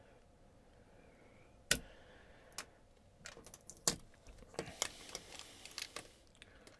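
Irregular small clicks and taps of objects being handled: one sharp click, then a scattered run of lighter clicks over a few seconds.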